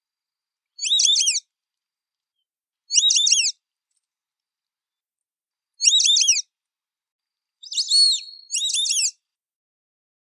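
White-faced whistling duck (irerê) giving its high whistled call: four short bursts of quick descending whistles, each about half a second long and a couple of seconds apart. The last burst follows a brief call with one held note.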